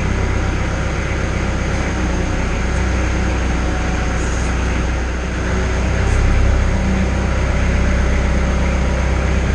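Kubota L-series tractor's diesel engine running steadily while the BH92 backhoe is worked on its hydraulics, a little louder about six seconds in.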